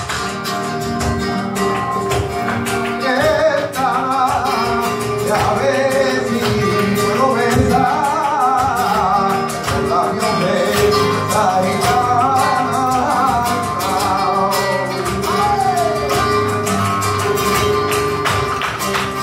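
Live flamenco music: acoustic guitars playing, with a singer's wavering voice coming in about three seconds in and carrying through most of the rest. Sharp percussive clicks sound throughout.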